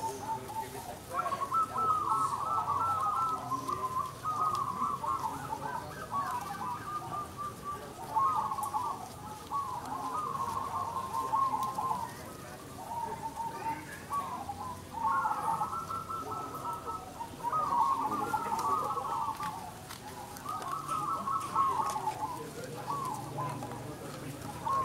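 Many zebra doves (perkutut) cooing at once, their trilled coo phrases overlapping without pause.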